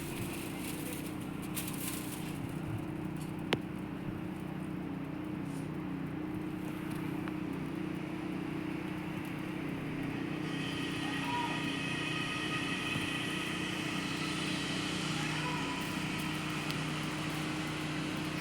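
A steady mechanical drone, with more hiss and some higher tones joining in from about ten seconds in.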